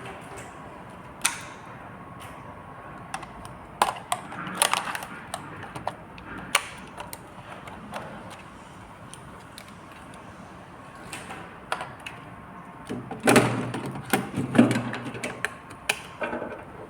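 Scattered clicks and knocks of small plastic parts being handled as wired terminal blocks are pulled off a display panel, with a busier run of knocks near the end.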